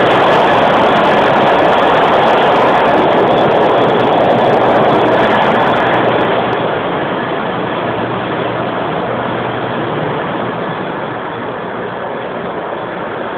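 Ship's engine-room machinery running: a loud, steady mechanical drone with several steady hums through it, turning somewhat quieter about halfway through.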